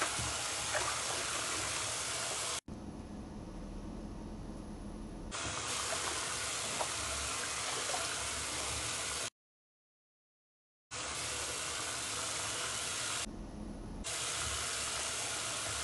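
Kitchen tap running into a sink of sudsy water while greens are swished by hand in the foam: a steady rush of water. It cuts out completely for about a second and a half just past the middle.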